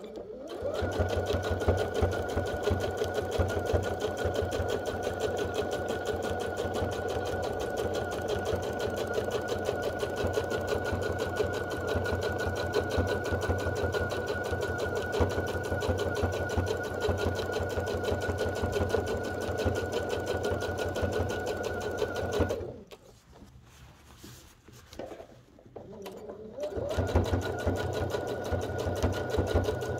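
Bernette sewing machine stitching steadily through a quilt at an even speed, with a fast needle rhythm under a steady whine. It stops about 23 seconds in for a few seconds, then starts again near the end.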